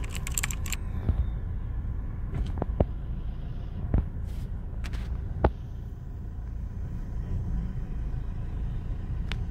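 Steady low rumble of a car's engine and running gear heard from inside the cabin while it creeps along in a traffic queue, with a few single sharp clicks. A quick run of typing-like clicks opens it.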